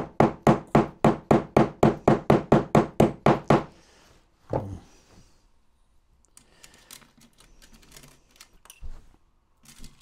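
A small hammer tapping rapidly on an aluminium model tank sprocket wheel, about five even taps a second, to ease a fixing into place. The taps stop after three and a half seconds. One more tap follows about a second later, then faint small clicks of parts being handled.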